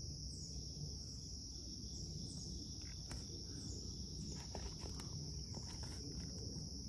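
Steady high-pitched insect chorus from the surrounding woods, a continuous shrill drone with a fainter pulsing layer above it. Under it sits a low rumbling background with a few faint clicks.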